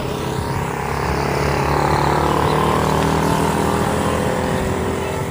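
A motor vehicle's engine running steadily under a broad rush of wind noise, swelling slightly about two seconds in.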